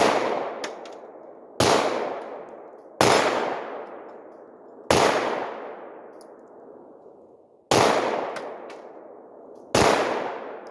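Six handgun shots fired slowly for accuracy, one every one and a half to three seconds, each followed by a long echoing decay.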